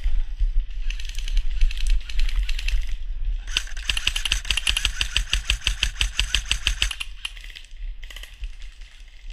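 Airsoft electric rifle firing full-auto: rapid even clicks about ten a second, one long burst of about three seconds in the middle, with shorter bursts before and after, over a steady low rumble.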